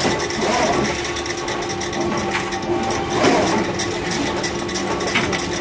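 Demtec and Urbinati potting and transplanting line running: a steady machine hum with rapid clicking and clatter, and a louder swell about half a second in and again about three seconds in.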